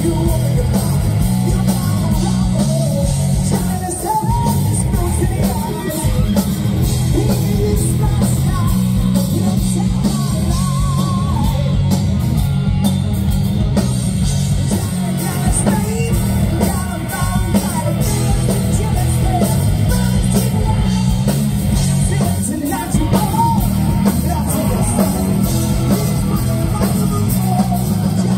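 Live hard rock band playing: a male lead singer singing over electric guitars, bass and drums, loud and heavy in the low end.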